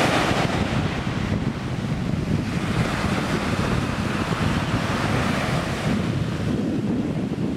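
Small sea waves breaking and washing up over a sand-and-shingle shore in a continuous surf wash, with wind buffeting the microphone.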